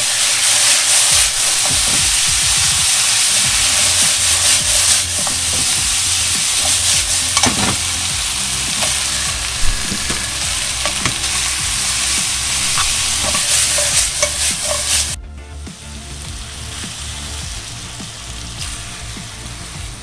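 Pork slices and onion frying and sizzling in a pan as they are stirred with chopsticks, with occasional clicks of the chopsticks. About three-quarters of the way through the sizzle cuts off suddenly and only a much quieter sound remains.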